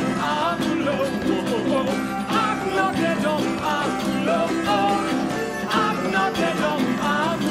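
A song: a voice singing a melody over instrumental backing, likely the last chorus.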